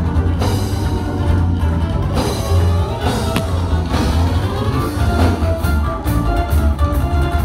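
Worship music playing in a church sanctuary, instruments over a heavy, steady bass.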